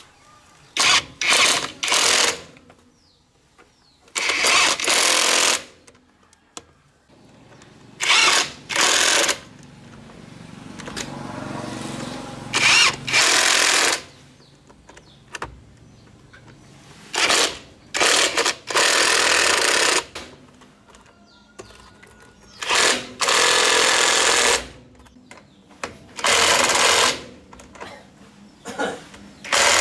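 Cordless impact wrench hammering on a truck's rear wheel hub nuts in short bursts of about one to two seconds, a dozen or so times, as it undoes the nuts one after another.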